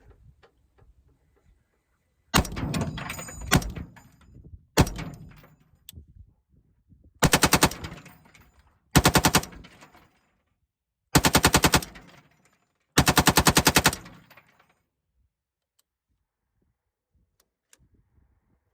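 An AR-15 fitted with a Lima6 belt-fed upper receiver firing 55-grain .223/5.56 rounds off a linked belt. A few opening shots about two seconds in are followed by four rapid bursts, each under a second long and one to two seconds apart. The belt feeds through without a stoppage.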